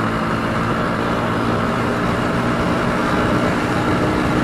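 Bajaj Pulsar NS125 motorcycle's single-cylinder engine running steadily as the bike cruises along the road, heard from the rider's seat with road and wind noise.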